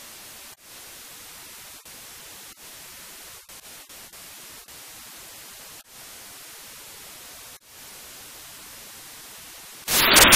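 Steady static hiss, like white noise, with brief dropouts scattered through it. Near the end it gives way suddenly to a much louder burst of noise.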